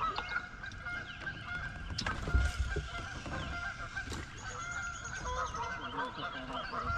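Birds calling: many short calls overlap throughout, with a few low thumps underneath.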